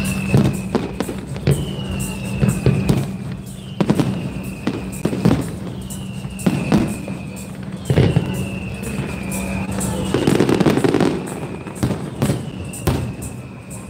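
Fireworks display: aerial shells bursting in a quick string of sharp bangs and crackles, with a denser crackling spell about ten seconds in. Background music with a held low note and a short falling high note repeating every couple of seconds plays underneath.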